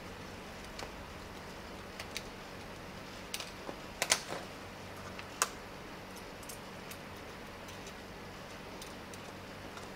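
Scattered light clicks and taps of a small screwdriver and screw working at the plastic handle housing of a professional hair-straightening flat iron, with a louder cluster of clicks about four seconds in and a sharp click about a second later.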